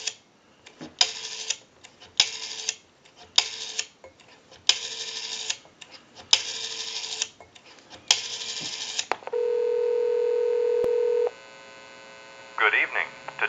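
Rotary dial of an RTT-56A Belgian desk telephone dialed six times, each time a short whirring buzz as the dial runs back. After that comes about two seconds of steady ringback tone, the called number ringing, and near the end a recorded time-and-temperature announcement voice starts to answer.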